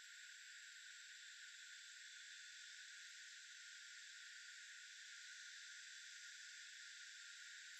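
Near silence: a faint, steady, even hiss in the upper-middle range, with no bird calls or other distinct events.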